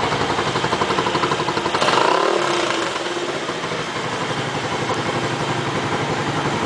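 Dafra Kansas 150 motorcycle's single-cylinder engine idling through its exhaust, with a short blip of the throttle about two seconds in before it settles back to a pulsing idle.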